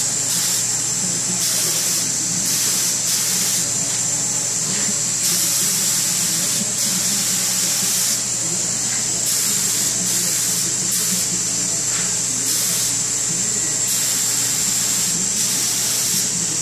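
Compressed-air siphon-feed paint spray gun hissing in repeated short bursts, each a fraction of a second to about a second long, as the trigger is pulled and released on each pass. A steady low hum runs underneath.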